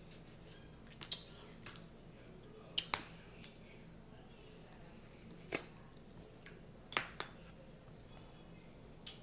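Boiled snow crab leg shells snapped and cracked apart by hand: a string of sharp cracks, about half a dozen, a second or two apart.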